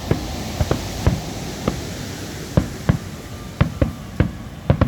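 Fireworks going off: about a dozen sharp bangs at uneven intervals over a steady background noise.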